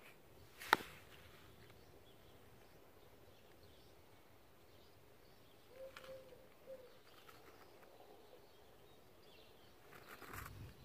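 Quiet background with one sharp click about a second in, a faint bird call of two short low notes around the middle, and light handling rustle near the end.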